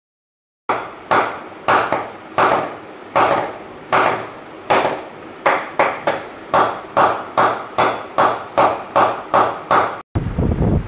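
Wooden mallet knocking in a new SG Sunny Gold Classic willow cricket bat: a steady run of sharp wooden knocks, about two to three a second, each ringing briefly. The knocking stops just after ten seconds.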